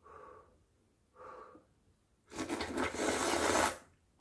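A person slurping hot clam noodle-soup broth from a ladle: two short, quieter sounds, then one long, loud slurp of about a second and a half.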